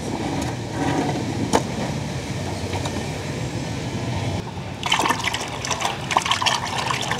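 Water sloshing and splashing as a hand sweeps through a tub of muddy, foamy water, starting about five seconds in. Before that there is a steady low wash of water noise with one small knock about a second and a half in.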